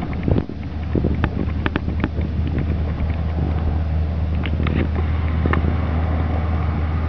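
Vehicle engine idling steadily, with a few faint clicks and taps over it.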